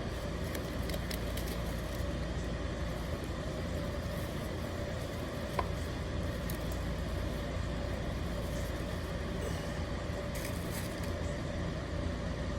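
Steady low background rumble with a faint constant hum, and one small click about five and a half seconds in.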